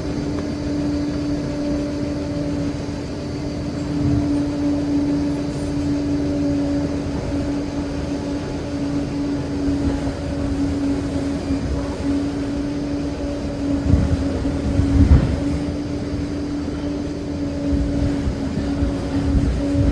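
Liebherr PR 746 crawler dozer working, its engine and drive giving a steady whine with rumbling and clatter underneath. A few heavier low surges come about two-thirds of the way through and again near the end.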